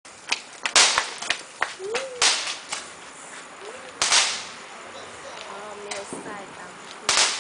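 Firecrackers going off one at a time: sharp bangs at irregular intervals, four loud ones and several smaller pops, the loud ones with a short echoing tail.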